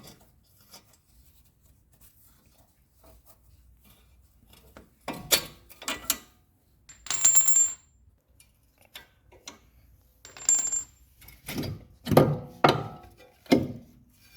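Steel bolts and tools clinking and ringing as the lower shock-absorber strut bolts are pulled out and set down, followed by several heavier metal knocks near the end.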